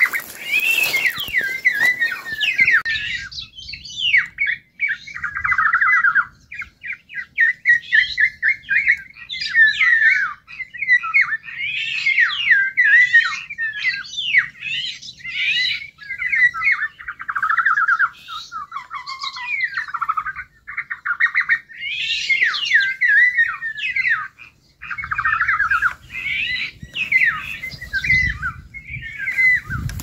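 Birds calling without pause: a dense, overlapping run of harsh squawks and chirps. Rustling through grass sounds at the start and again near the end.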